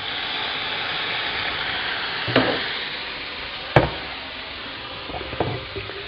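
Pieces of cooked octopus sizzling as they drop into hot oil in a frying pan. The sizzle swells at once and then slowly dies down, broken by two sharp knocks about a second and a half apart.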